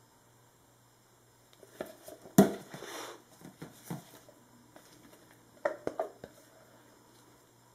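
Plastic measuring pitchers and a silicone spatula being handled and set down on a table: one loud knock about two and a half seconds in, followed by scraping and a few smaller clunks, then a quick cluster of knocks about six seconds in.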